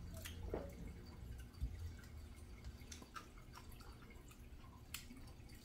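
Quiet eating and tabletop handling sounds: scattered small clicks and ticks, with a soft low thump about one and a half seconds in and a sharper click near the end.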